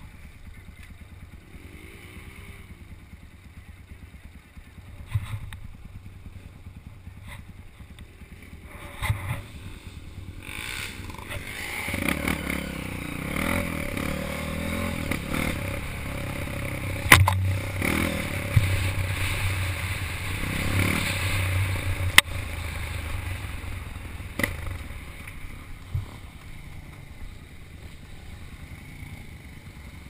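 Off-road motorcycle engine running as the bike rides over a rough, rutted dirt trail, with clattering knocks from the bike jolting over bumps. The engine gets louder for about ten seconds in the middle, with two sharp knocks.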